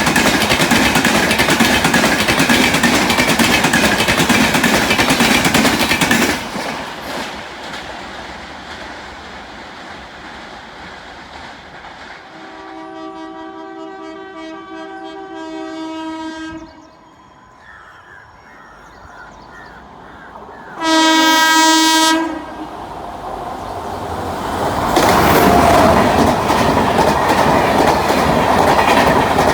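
An Indian express train's wheels clatter past loud on the rails, cutting off abruptly about six seconds in. A second train's locomotive horn then sounds a steady blast of about four seconds, and a few seconds later a shorter, louder blast. Near the end that train's wheels run past loud on the track.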